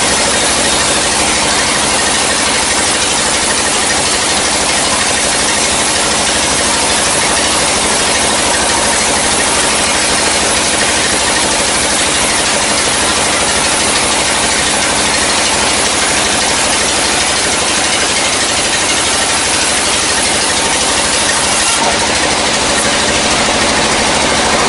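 Sawmill band saw cutting lengthwise through a dry log, a loud, steady sawing noise over the constant hum of the machine.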